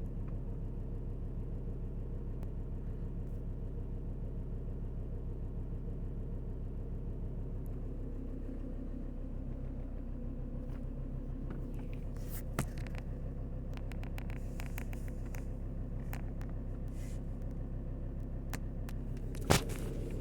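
Alfa Romeo 156 2.4 JTD's five-cylinder turbodiesel running at a steady, even pace, with a few sharp clicks, the loudest near the end.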